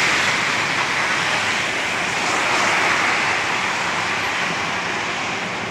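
Car tyres hissing on a wet road as a car passes close by, loudest right at the start and then fading, with a smaller swell of tyre noise about two to three seconds in, over steady rain.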